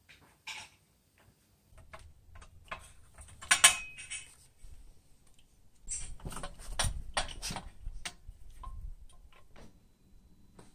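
Scattered clicks and metallic clinks of exhaust pipes and hand tools being handled. One louder ringing metal knock comes about three and a half seconds in, and a busier run of knocks and handling noise follows a little past halfway.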